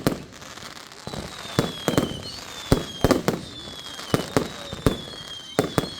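Fireworks going off: a dozen or so sharp bangs, some in quick pairs, over a background of crackle, with several high whistles that fall slightly in pitch, each lasting about a second.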